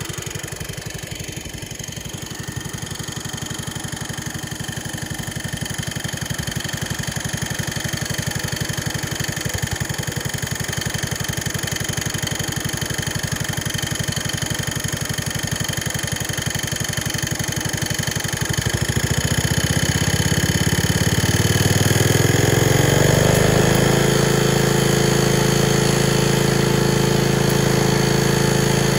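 Small engine of a 1970 garden tractor idling, then throttled up about twenty seconds in, revving over a few seconds and settling at a steady higher speed as its governor is tested.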